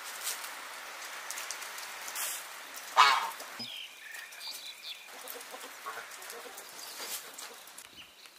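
Outdoor ambience: an even hiss with scattered short bird chirps, and one brief louder call about three seconds in.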